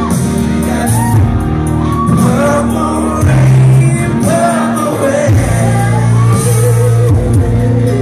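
A drag queen singing into a microphone over a loud backing track with steady, heavy bass notes, her melody gliding between long held notes, heard through a club's sound system.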